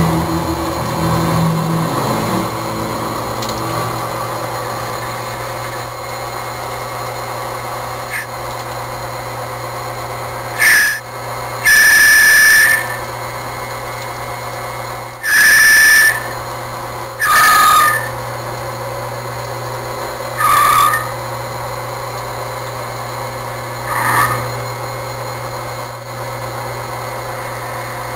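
Lathe running with a steady hum, broken by six short, loud, high-pitched squeals, the longest about a second each.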